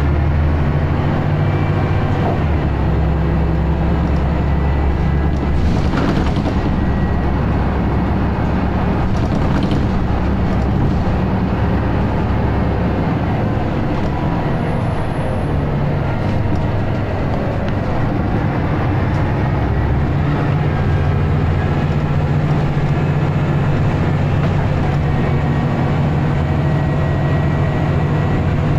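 Scania L94UB single-decker bus's five-cylinder diesel engine and ZF automatic gearbox running under way, heard from inside the passenger saloon. The engine note shifts a couple of times, about two seconds in and again past the middle.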